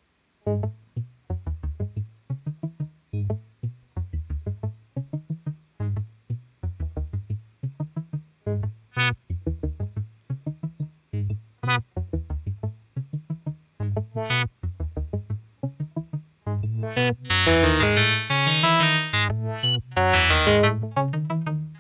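Ableton Wavetable software synth playing a looping sequence of short, low, muted notes, with a bright spike once each bar where the filter automation jumps open. About 17 seconds in the drawn filter envelope holds the filter open and the notes turn bright and full.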